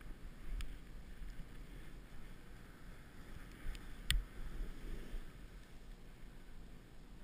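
Soft, steady hiss of snow under a rider sliding through powder, with two sharp knocks, a faint one about half a second in and a louder one about four seconds in.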